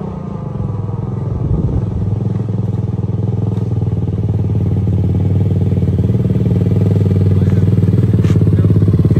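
2013 Yamaha YFZ450 ATV's single-cylinder four-stroke engine running at a steady, moderate throttle as the quad rides up the street toward the listener, growing steadily louder as it closes in.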